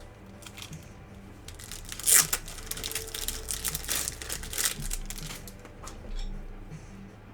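Foil trading-card pack wrapper crinkling and being torn open: a few seconds of crackly rustling and tearing, loudest about two seconds in.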